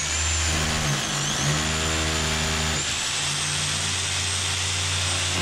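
Hammer drill boring a hole into a masonry wall, its motor hum dipping briefly about a second in and again near three seconds. A vacuum cleaner held at the hole to catch the dust runs throughout with a high steady whine.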